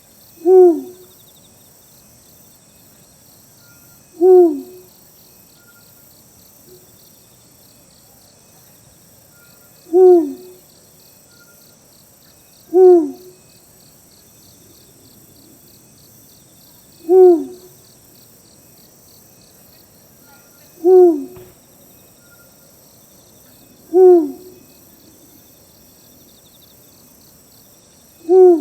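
Eurasian eagle owl hooting: eight short, deep hoots, each dropping slightly in pitch, spaced a few seconds apart. A steady high chirring of insects runs underneath.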